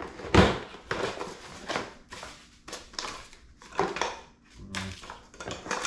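Cardboard box being opened by hand: the flaps scraping and the paper instruction leaflet rustling, in a string of short scrapes and crinkles, the loudest about half a second in.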